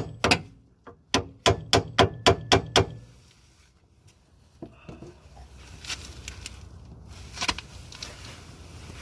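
Hammer blows on metal, quick and regular at about four a second, knocking the new front strut into its seat; the blows stop about three seconds in, leaving a few faint clicks and knocks.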